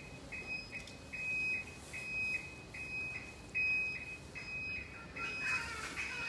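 Electric scooter's turn-indicator buzzer beeping, a single high tone repeating evenly about twice a second in time with the flashing amber indicators.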